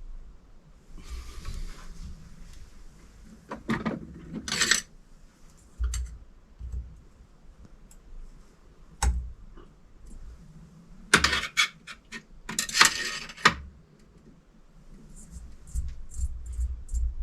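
Metal tools and small metal parts clinking and rattling in short bursts while an electric supercharger is being dismantled by hand, with scattered single clicks between the clusters.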